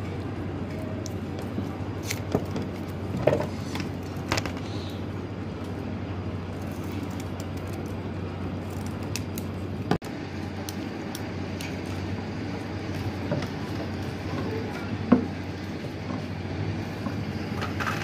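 Workshop ambience: a steady low hum with scattered light metallic clicks and knocks from tools and fan-motor parts being handled on the workbench, the sharpest knock about fifteen seconds in.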